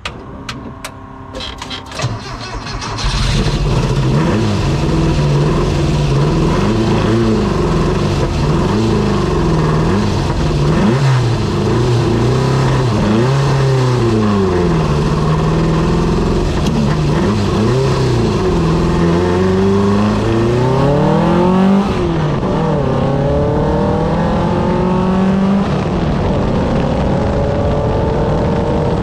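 The straight-piped, built 1.7-litre flat-four of a 1970 Porsche 914 race car cranks and catches about three seconds in. It is then blipped up and down repeatedly. Near the end it pulls under acceleration, its pitch climbing steadily.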